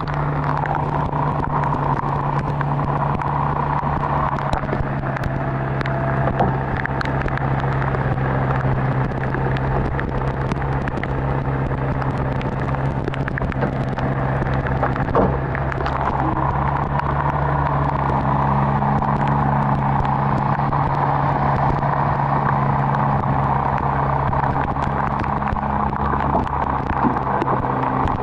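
Subaru Sambar kei truck's 660 cc four-cylinder engine idling steadily, with a few light clicks and knocks over it.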